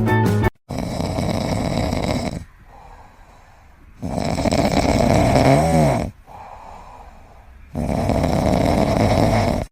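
A pet snoring loudly: three long rasping snores, each about two seconds long and three to four seconds apart, with quieter breaths between them. The middle snore ends in a wavering, whistling pitch.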